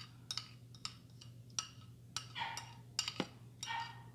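A utensil scraping and tapping against a dish as sticky soap slime is scraped off it: an irregular run of sharp clicks and short scrapes, with a couple of longer scrapes in the second half.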